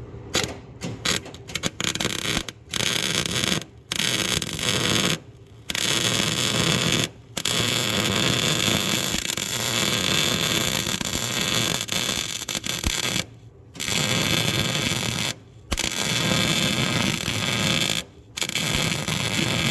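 Arc welding: the arc's steady crackle, like frying bacon, starting and stopping for about eight welding runs, after a few short tack bursts in the first couple of seconds.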